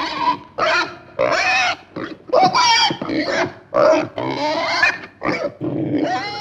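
Domestic pigs squealing: a quick run of short, high-pitched calls, one after another about every half second.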